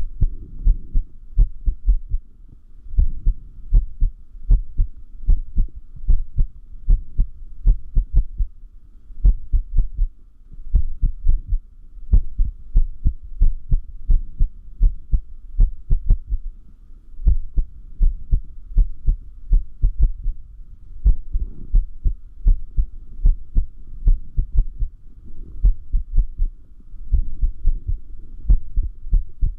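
Human heart beating with an irregular rhythm (arrhythmia): low double thumps, lub-dub, at roughly one beat a second, with uneven spacing and occasional longer pauses between beats.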